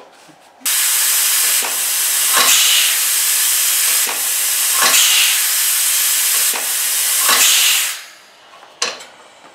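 Homemade compressed-air engine with cam-operated spool valves running slowly on air: a loud steady hiss of escaping air with a pair of sharp puffs about every two and a half seconds as the valves open and close each turn. The hiss dies away near the end.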